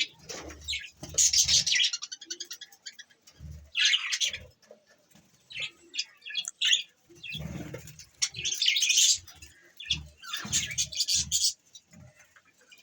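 Budgerigars chirping and chattering in quick, repeated bursts, with low thuds in between.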